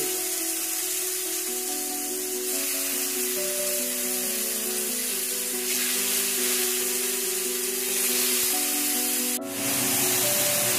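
Marinated chicken pieces sizzling on a very hot ridged grill pan, a steady hiss that breaks off for a moment near the end. Background music with held notes plays throughout.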